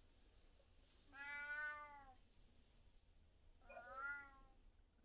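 Black cat meowing twice, about two and a half seconds apart; the first meow is the louder.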